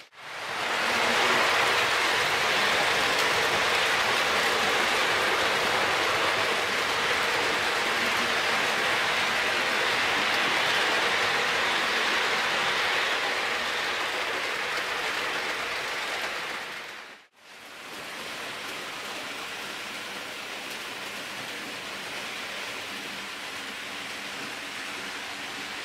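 Märklin HO-scale model trains rolling along the layout's track with a steady rolling noise of wheels on rails. It fades out briefly about two-thirds of the way through, then returns quieter.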